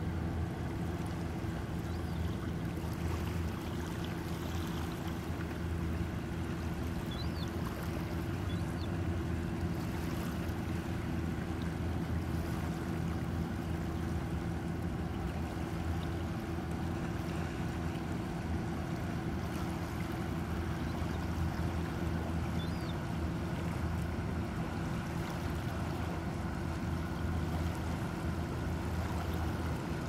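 A steady low motor drone with an even hum, unchanging throughout, and a few faint short high chirps.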